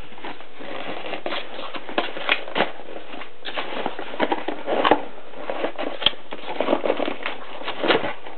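Irregular rustling, light clicks and knocks of items and packaging being handled, over a steady low hiss.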